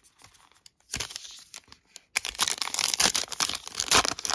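Trading card pack wrapper being torn open and crinkled by hand: a short rustle about a second in, then continuous crackling and tearing from about two seconds in.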